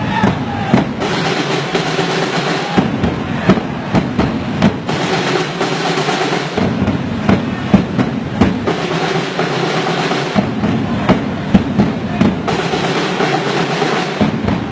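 Large group chanting a battle chant in unison over a steady beat of drums. The chant repeats in phrases of about two seconds.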